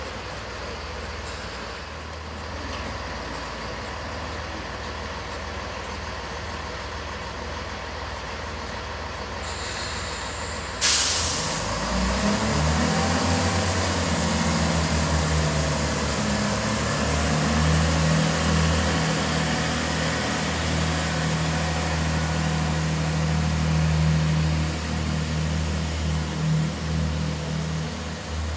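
Class 165 diesel multiple unit idling, a sharp hiss of air about 11 seconds in, then its underfloor diesel engines rev up as the train pulls away.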